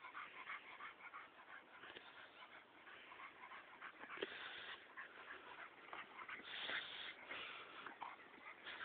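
A harrier hound and a pit bull mix at play, making dog play noises in quick, short bursts that grow louder about halfway through.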